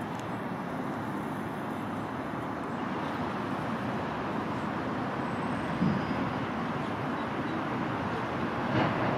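Steady, even rumble of distant road traffic, with two brief knocks about six and nine seconds in.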